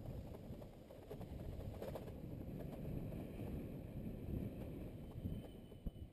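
Wind rumble on a motorcycle-mounted camera's microphone, with the low drone of the motorcycle riding along a winding road.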